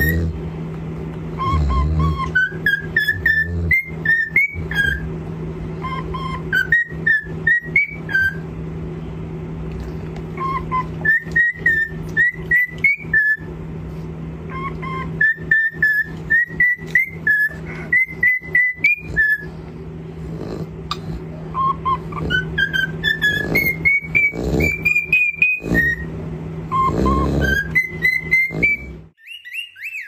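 Cockatiel whistling a tune: phrases of short, clear, mostly upward-stepping whistled notes with pauses between them, over a steady low hum. The whistling and hum cut off about a second before the end.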